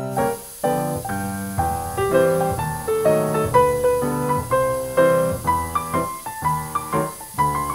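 Background piano music, notes struck one after another at an even pace.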